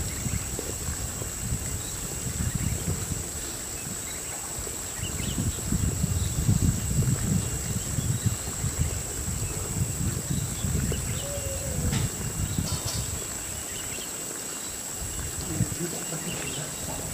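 Forest ambience: a steady high-pitched insect drone, with wind buffeting the microphone in low gusts that swell through the middle.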